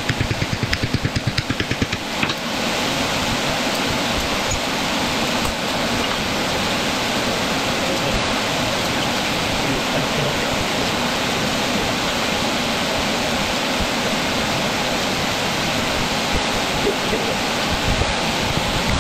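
Steady rushing of a large shop fan running. During the first two seconds there is a fast, regular pulsing before the sound settles into an even rush.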